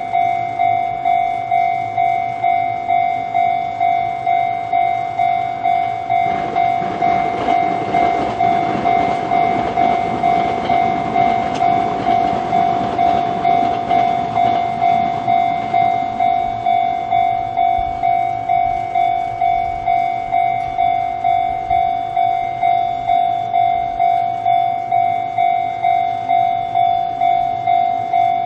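Japanese level-crossing alarm ringing its electronic 'Chichibu' bell tone, steady strikes about one and a half a second. From about six seconds in, a Fuji Kyuko Line train passes over the crossing, its rumble rising, loudest in the middle and fading out about ten seconds later while the alarm keeps ringing.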